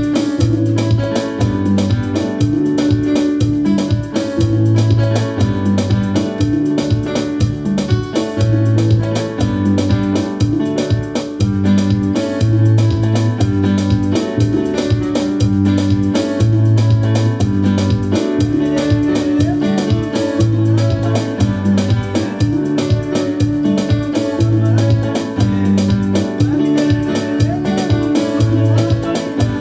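Electronic keyboard played with both hands: a bass line and chords that change every second or two, over a steady beat.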